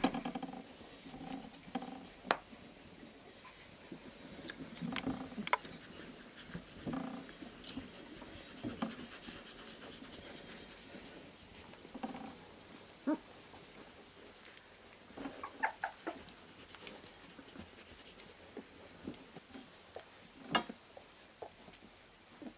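Three-week-old Irish setter puppies whimpering and squeaking now and then in short cries as they jostle around their mother. Small scuffles and knocks come from their paws on the whelping box.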